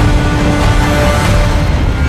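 Loud music: held notes over a dense, heavy low end.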